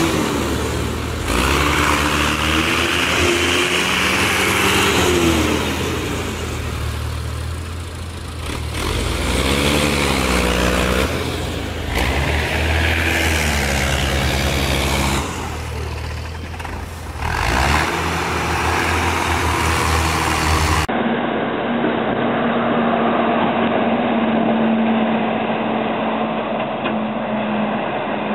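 IMT tractor's diesel engine labouring as it drags a loaded log trailer through deep mud, its revs rising and falling in repeated surges. About two-thirds of the way through, the sound changes to a dump truck's engine running at a steady drone.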